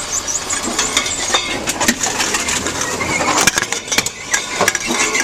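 Tomra T-X2 reverse vending machine taking in returned containers and crushing them: a dense, irregular clatter of crunches and clinks.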